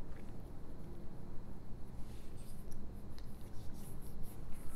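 Faint rustling and rubbing handling noise from a clip-on lavalier microphone held in the hand as the fingers and cable shift against it, over a steady low rumble.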